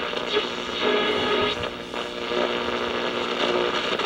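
Rogers Majestic RM502 All-American Five tube radio giving hum and static through its speaker, tuned between AM stations.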